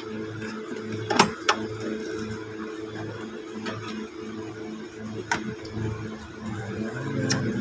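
Hyundai Grand i10 engine running with a regular low pulsing beat about three times a second, the uneven running of an engine with a misfire on one cylinder. Several sharp metallic clicks sound over it, the loudest about a second in.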